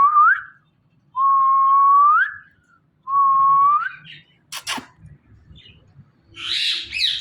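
Indian ringneck parrot whistling: a run of clear notes, each held steady and then sliding up at the end. A sharp click follows, and a harsh, raspy call comes near the end.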